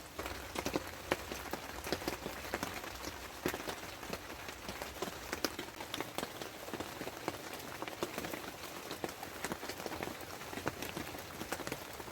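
Rain falling steadily, with many irregular drops striking close by.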